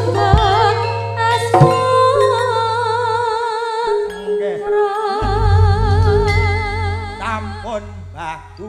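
Campursari band playing live while a singer holds long notes with vibrato over the band. The music dies away near the end as the song finishes.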